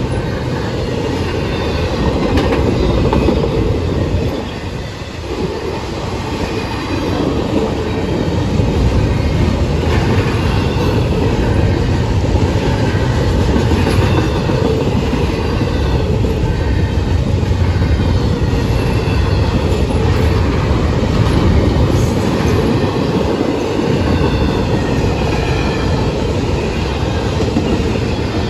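Double-stack container well cars of a freight train rolling past a grade crossing. Their steel wheels make a steady rumble and clacking on the rails, with a brief dip in loudness about five seconds in.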